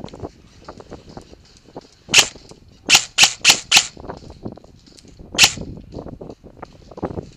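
VFC HK416 airsoft electric rifle fired on semi-auto: a single shot, then four shots in quick succession at about four a second, then one more shot.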